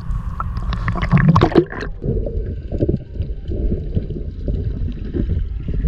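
Water splashing and gurgling as a snorkeler dives from the surface, loudest about a second and a half in. After about two seconds the sound is underwater: a muffled low rumble with faint crackles.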